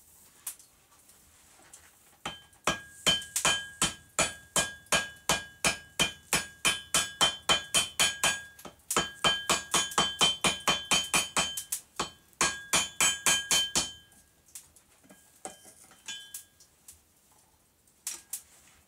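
Blacksmith's hand hammer forging a red-hot railroad spike on an anvil: a fast, steady run of blows, about three a second, with the anvil ringing after each strike. The hammering pauses briefly twice, stops about fourteen seconds in, and a few lighter taps follow.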